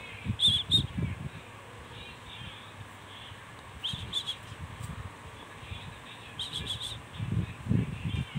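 Short high-pitched chirps in quick clusters of two to four, heard three times, over scattered low soft thuds.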